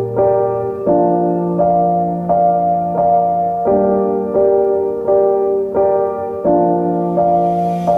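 Background piano music: a slow, gentle piece of repeated chords struck about every three quarters of a second.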